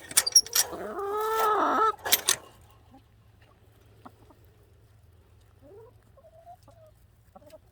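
A chicken gives one drawn-out call of about a second that rises and falls in pitch, with sharp taps just before and after it. Later come a few faint short chirps.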